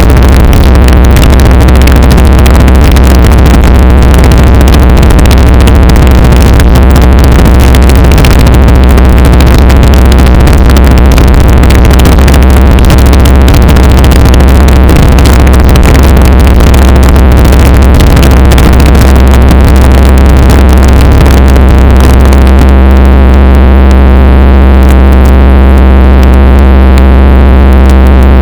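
Homemade five-motor welded steel noise machine running flat out, a dense, loud, unchanging wall of noise over a heavy low drone. About 22 seconds in, the highest hiss falls away and a steady hum comes through.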